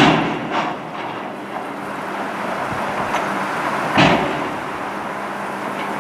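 Loaded pulpwood cars of a freight train rolling slowly past with a steady rumble of wheels on rail. Sharp knocks of wheels over rail joints come at the start, again about half a second later and, loudest, about four seconds in.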